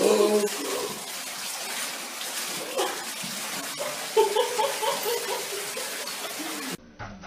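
Water pouring from a bathtub faucet into a filling tub, a steady rush, with splashing as a cat thrashes in the water at the start. A few short pitched cries sound over it, the loudest a little after four seconds in, and the running water cuts off abruptly near the end.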